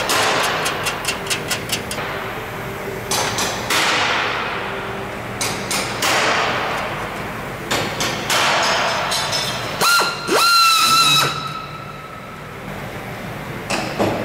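Pneumatic air drill back-drilling rivet holes through an aircraft skin panel in several short runs. About ten seconds in it spins up to a whine that rises, holds for about a second and stops. A quick run of sharp metallic clicks near the start.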